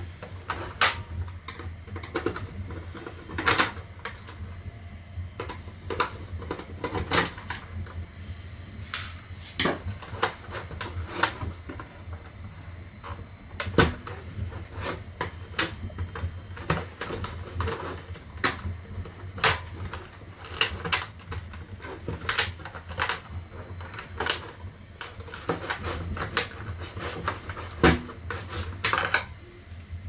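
Irregular clicks and knocks of a Roomba robot vacuum's plastic chassis and parts being handled, with a steady low hum underneath.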